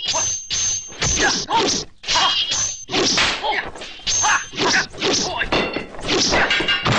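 Rapid clashing of a sword against a long staff weapon in a kung fu film fight: a quick run of sharp metallic clangs, about three a second, many with a short high ring, mixed with whacks and the whoosh of swung weapons.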